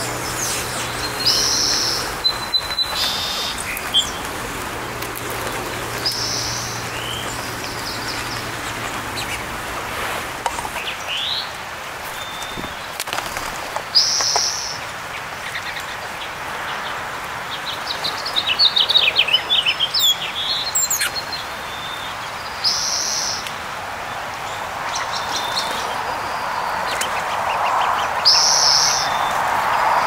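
Wild songbirds singing and calling: a short, high song phrase repeats every few seconds, with a quick run of chirps and twitters a little past the middle.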